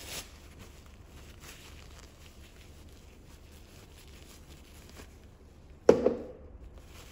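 Faint handling sounds of gloved hands working a tissue around a glass dropper bottle, over a steady low hum, with one short loud rustle of the tissue about six seconds in.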